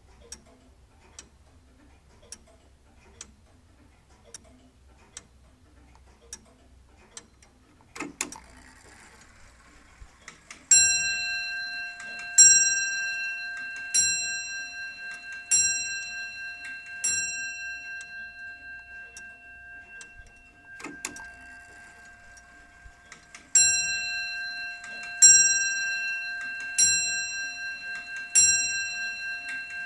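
Oak longcase (grandfather) clock ticking about once a second. About eight seconds in there is a louder clunk, and then its bell strikes about every second and a half with a long ringing decay: five strikes, a pause of several seconds, then another run of strikes.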